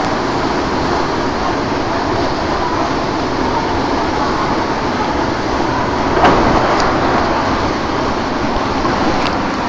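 Waterfall running: a loud, steady rush of falling water, with a brief louder burst about six seconds in.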